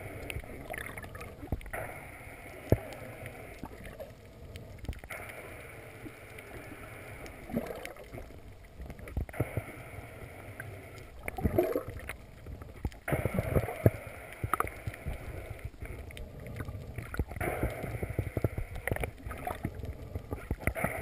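Water sound picked up by an underwater camera housing: uneven swishing and gurgling, with scattered sharp clicks and knocks.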